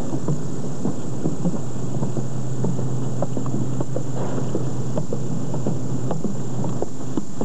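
Footsteps and knocks on a railed catwalk stairway as people climb it, with scattered short knocks over a steady low hum and rumble.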